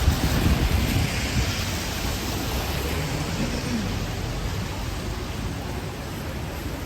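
Steady rain hiss on a city street, with a low rumble underneath, a little louder in the first second.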